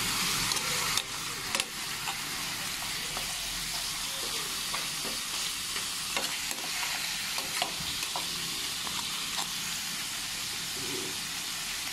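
Boiled pork hock pieces sizzling in oil with onion and garlic in a frying pan, a spatula turning and scraping them with scattered light clicks over a steady sizzle.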